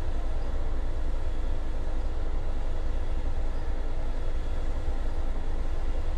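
Class 66 diesel-electric locomotive's two-stroke V12 engine idling while the locomotive stands, heard as a steady low rumble with a faint hum.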